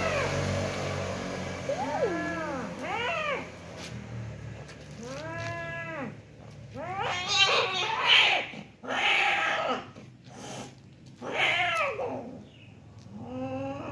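Domestic cats in a fight yowling: a string of drawn-out caterwauls, each rising and falling in pitch, about six in all with short gaps between.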